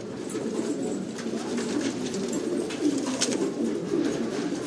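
Many domestic pigeons cooing together in a small loft, a continuous low overlapping murmur.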